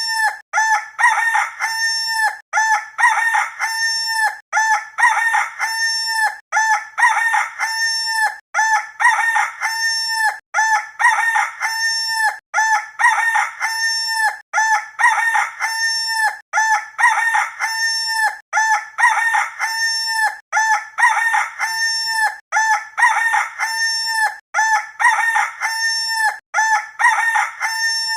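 Rooster crowing sound effect: the same cock-a-doodle-doo crow repeated over and over, about once every two seconds, as a loop.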